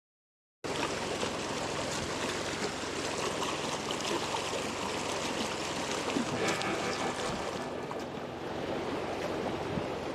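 Creek water running steadily, cutting in abruptly about half a second in.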